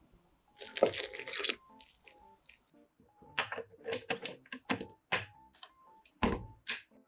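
Short clicks and taps from kitchen work, in three clusters, over faint background music.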